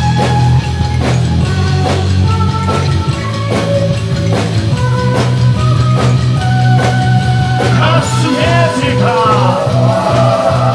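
Live rock band playing: electric guitar, bass and drum kit on a steady beat, with held melodic notes over them. A singing voice comes in about eight seconds in.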